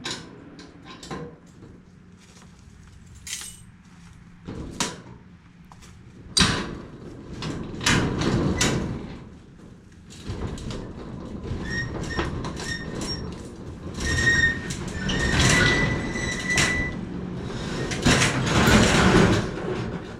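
Sharp metallic clicks of a padlock and latch being handled, then a metal roll-up storage-unit door rattling and scraping as it is raised in long pushes, with short high squeals in the middle.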